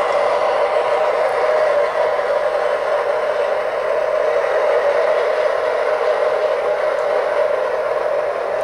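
O-scale model train with MTH Railking Alco C628 diesel locomotives running past on three-rail tubular track. It makes a steady rolling noise of metal wheels on the rails and the locomotive's running motor.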